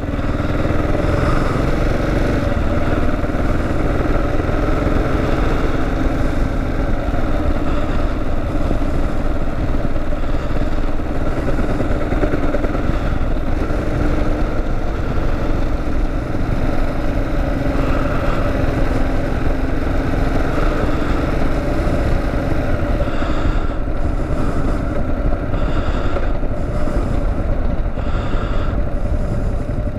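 Kawasaki KLR 650 motorcycle's single-cylinder four-stroke engine running steadily while riding, with wind and road noise over it.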